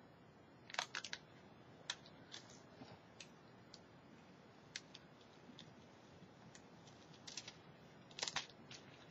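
Faint, scattered crinkles and ticks of a sheet of craft transfer foil being rubbed down onto double-sided tape on card with a stick, with a quick cluster near the end as the foil is peeled away.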